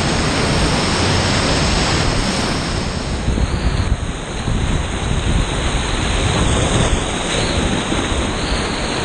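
Whitewater rapids rushing loudly right around a kayak in the current, with churning water splashing close to the boat.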